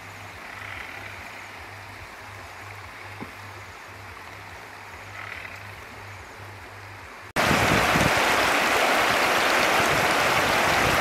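Faint, quiet background, then about seven seconds in an abrupt switch to the loud, steady rush of a shallow river running over rocks.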